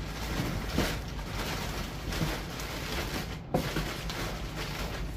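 Plastic bags crinkling and rustling against cardboard as packages are dug out of a box, with a sharp knock about three and a half seconds in. A steady low hum runs underneath.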